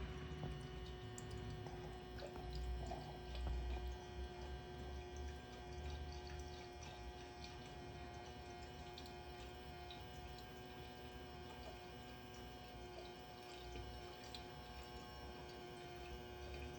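Water trickling and dripping from the outlet pipe of a mini DC submersible pump, with a faint steady hum underneath.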